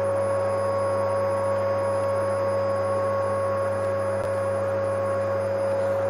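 Vacuum cleaner running steadily: a constant motor whine over an even rush of air.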